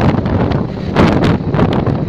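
Wind buffeting the microphone of a camera moving along at speed, a rough, gusty rush over a low rumble, with the strongest gust about a second in.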